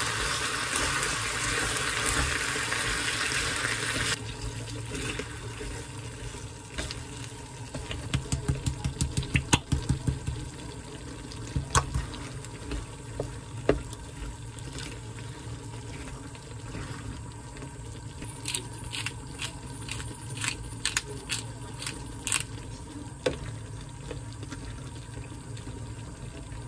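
Sausages and vegetables sizzling in sauce in a frying pan while a slotted spatula stirs them. The spatula scrapes and clicks against the pan, with quick runs of clicking strokes about eight seconds in and again around eighteen to twenty-two seconds. The hiss of the sizzle is loudest for the first four seconds and then drops sharply.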